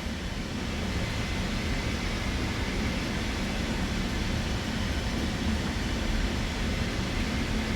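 Steady background hiss with a low rumble, unchanging throughout, with no clicks or knocks.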